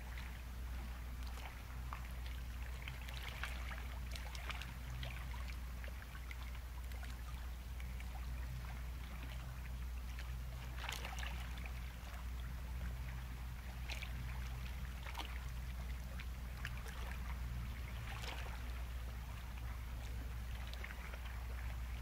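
Sea waves breaking and washing on a rocky shore: a steady low rumble with irregular hissing splashes, a stronger one about eleven seconds in.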